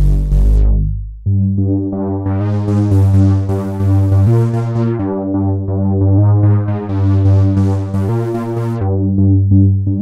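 Arturia MicroFreak synthesizer playing a noisy bass patch: a deep note fades out about a second in, then a run of bass notes follows, each changing about once a second. Twice a bright hiss swells up and falls away over the notes as a panel knob is turned.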